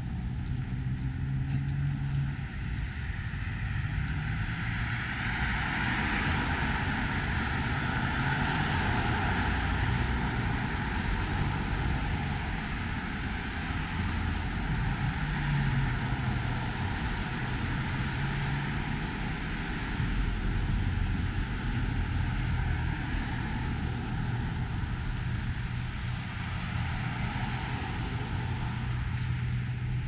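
Road traffic passing on a multi-lane street: cars swell up and fade as they go by, over a steady low hum of engines, with the loudest pass about five to ten seconds in.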